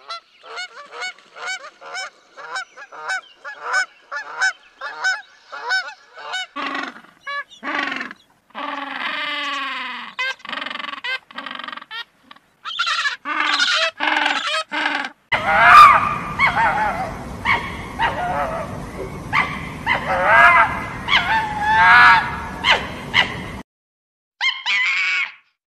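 Canada geese honking in a fast series, about three honks a second, for the first six seconds. Then other animal calls follow, and from about fifteen seconds in, king penguins calling over a steady windy hiss from the colony, with two short bursts of calls near the end.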